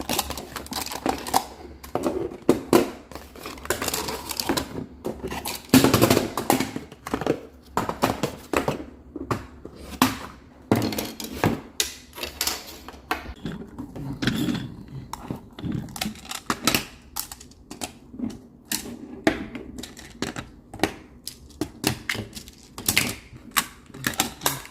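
Plastic magnetic building tiles clacking and clicking against each other as they are handled and snapped together: many short, irregular clicks.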